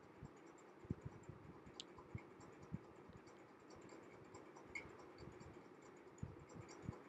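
Near silence: room tone with a few faint, scattered low taps and soft ticks.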